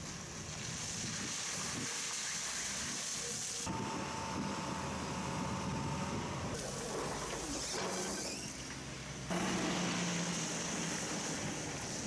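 Street traffic and vehicle engines on a wet road, with road-works machinery. The sound changes abruptly three times, and a steady low hum comes in about three-quarters of the way through.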